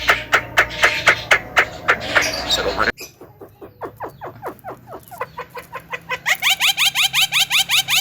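Javan myna calling in fast runs of short, harsh repeated notes, about five to seven a second. The run breaks off abruptly about three seconds in, carries on more quietly, and grows loud again near the end.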